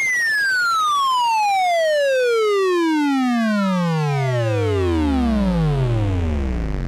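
Synthesizer tones gliding steadily down in pitch over several seconds, from a high whistle to a deep bass near the end, with several more falling tones layered above the main one.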